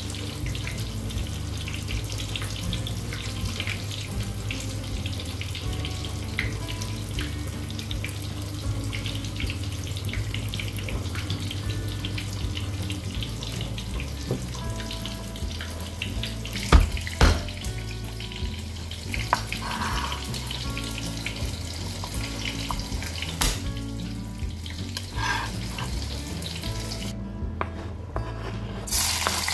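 Background music with a steady low bass line over a steady hiss, and two sharp knocks about halfway through.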